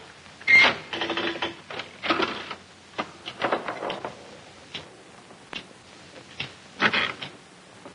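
'Red Hot' pinball machine in play: an irregular clatter of sharp clicks and short rattles from the ball and the machine's mechanism. The loudest bursts come about half a second in, around two seconds in, and near the end.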